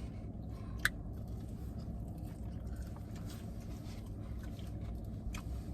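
Someone chewing and biting into chicken wings, with soft wet mouth sounds and a sharp click about a second in and another near the end, over the steady low hum of a truck cabin.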